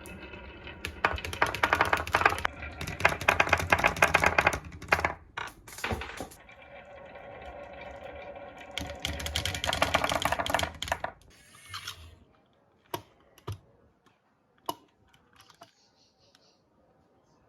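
Marbles rolling and clattering down a wooden HABA marble run: two spells of dense rapid clicking with a low rumble, then a few single clicks as the run empties.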